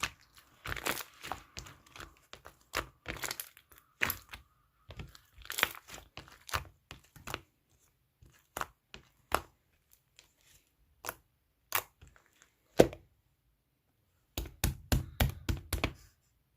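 Slime being pressed and played with by hand, giving off irregular pops and crackling clicks, with a quick run of pops near the end.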